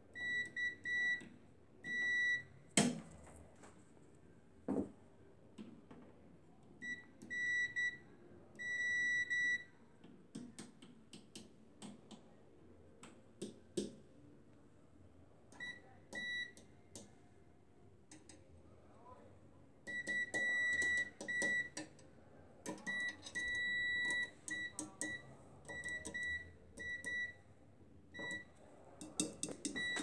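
Digital multimeter's continuity beeper giving a steady high beep that switches on and off in irregular stretches, short blips and longer tones of up to about a second and a half, as the test probes make and break contact on the microwave oven's ground points. Clicks and scrapes of the probe tips on metal fall between the beeps. The beep signals an unbroken path to ground.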